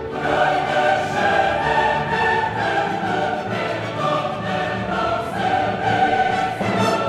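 Background music: a full orchestral track with a choir singing, breaking in at full strength at the start after a rising swell.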